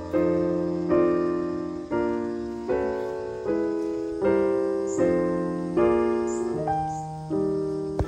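Background piano music: a slow, gentle melody of struck notes and chords, a new one about every second, each fading before the next.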